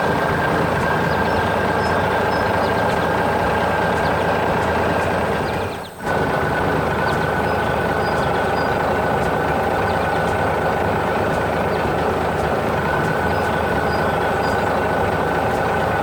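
Heavy construction vehicle engine running steadily. It drops out briefly about six seconds in, then resumes.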